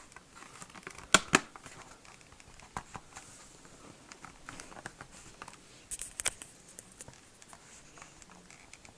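Plastic clicks and taps as the Acer Aspire 5741G laptop's plastic underside cover is handled and fitted back over the RAM bay, with two sharper clicks about a second in and a few more around the middle.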